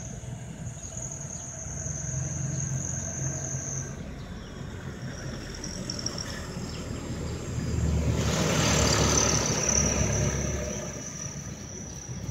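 A motor vehicle passing by: a low engine rumble that swells to its loudest about eight seconds in and fades over the next few seconds. Under it runs a steady high-pitched drone.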